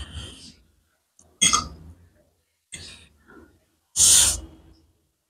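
Slurping and chewing of spicy instant noodles: four short bursts of mouth noise, the loudest and longest a noodle slurp about four seconds in.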